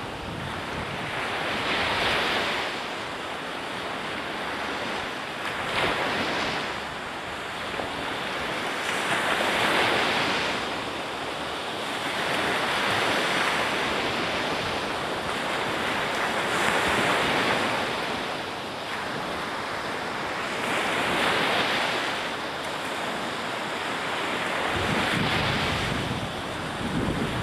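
Atlantic surf breaking on the beach, the wash swelling and fading every few seconds, with wind on the microphone and a low rumble joining near the end.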